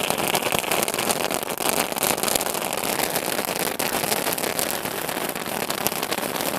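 Handheld 'Top Gun' gun-shaped spark-fountain firework burning: a steady hiss of spraying sparks, thick with small crackles.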